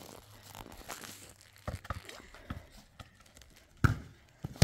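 Dull thumps of a ball being struck by hand: a few scattered hits, then two louder ones near the end, less than a second apart.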